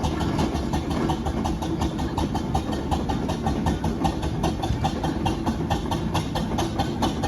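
An engine running steadily with a quick, even beat.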